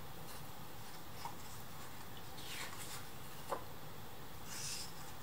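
Soft paper rustling and a faint tick as a picture book's page is turned, over a low steady room hiss.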